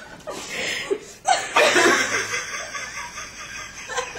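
Several people laughing, breathy and hard, with a louder burst of laughter just over a second in.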